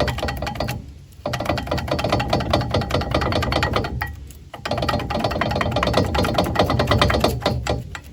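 Rapid metallic rattling and clicking as an old brake pad is worked out of a four-piston brake caliper, in two long stretches with a short break between them.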